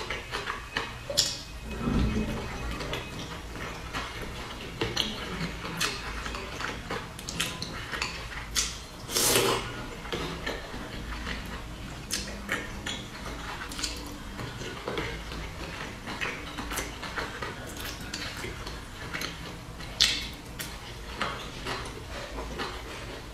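Chopsticks clicking and tapping against a small glass dipping bowl, in scattered sharp clicks, with close chewing of soft boiled dumplings in between. A longer, louder noise comes about nine seconds in.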